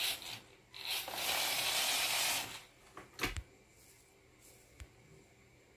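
Lego Technic model 4x4 driving in fourth gear: its two Powered Up XL motors and plastic gear train run with a noisy, high-pitched whir, dipping briefly just under a second in and stopping about two and a half seconds in. A few light clicks follow.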